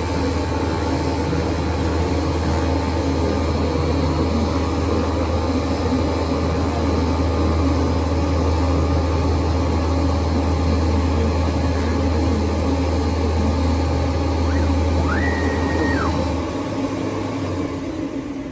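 CNC flatbed cutting machine running with a steady motor hum and whir. A brief higher whine rises, holds and drops about fifteen seconds in. The low hum falls away near the end.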